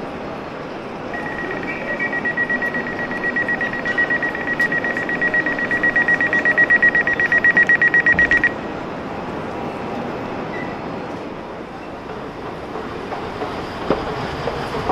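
A train's door warning signal: a high electronic beep repeating for about seven seconds, quickening and growing louder, then cutting off suddenly. Beneath it is the steady rumble of the train standing at the platform.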